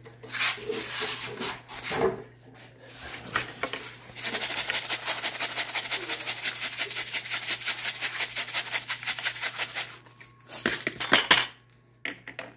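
Gravel and sand rattling and scraping in a wire-mesh kitchen strainer shaken in a bucket of water, classifying sluice tailings. After about four seconds of irregular scraping the shaking settles into a fast, even rattle for some six seconds, with a few louder knocks near the end.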